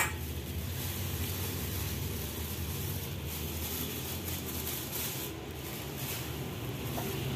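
Granulated sugar poured from a plastic bag onto a bowl of crumbly dough, a soft steady hiss, over a steady low hum in the background.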